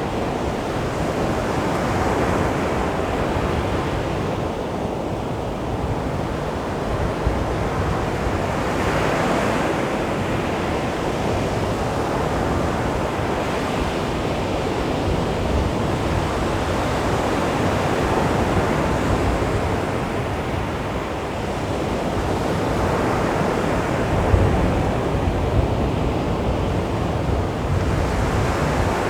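Calm sea waves breaking and washing onto a beach: a steady surf noise that swells gently as each wave comes in, every several seconds.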